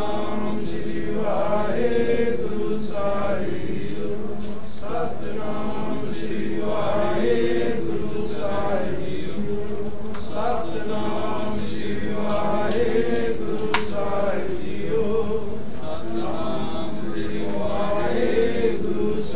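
Sikh devotional chanting: voices singing a short phrase over and over in a steady repeating rhythm, over a continuous low tone.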